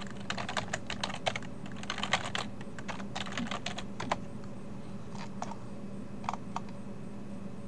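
Typing on a computer keyboard: a quick run of keystrokes for about four seconds, then a few single key presses.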